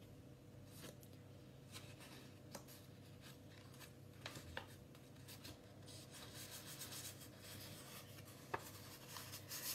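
Faint rustling of paper being wrapped and pressed around a glue-coated cardboard toilet roll, with a few light clicks and taps. The rustling grows a little over the last few seconds.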